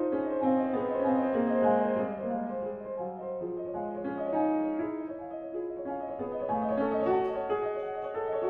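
Grand piano played solo: a continuous classical passage of many overlapping, ringing notes, with a lower line stepping downward over the first few seconds.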